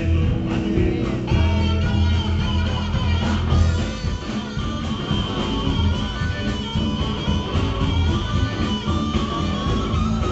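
Blues-rock band playing, with guitar prominent over a steady bass.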